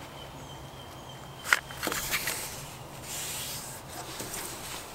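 A folded sheet of printer paper being pressed and creased against a wooden bench. There are two sharp paper crackles about a second and a half in, then soft rubbing as fingers run along the fold.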